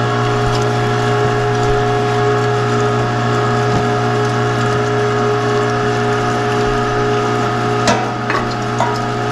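Cabela's #42 electric meat grinder running steadily under load as it grinds elk meat, its motor humming at an even pitch. A couple of light knocks come about eight seconds in.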